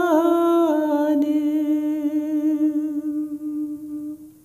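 A single unaccompanied voice humming one long held note at the close of a Sikh shabad (devotional hymn). The pitch wavers slightly, and the note fades out near the end.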